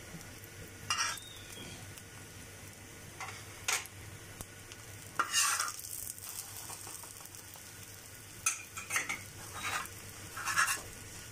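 A metal spoon and then a spatula scraping and tapping on a hot iron tawa while a fried egg is folded over, in a series of short scrapes, the loudest about five seconds in. Faint oil sizzling under the egg runs beneath them.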